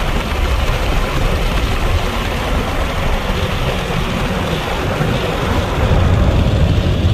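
Steady rumble of a car driving along a road, heard from inside the cabin, with a hiss of tyre and wind noise over a low drone.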